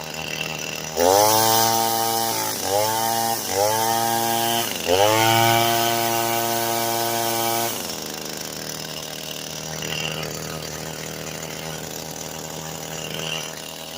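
Echo SRM 225 string trimmer's two-stroke engine running on a newly fitted carburetor. It revs from idle to full throttle about a second in, blips twice more, then holds full throttle for nearly three seconds before dropping back to a steady idle. It pulls cleanly to full throttle without bogging down.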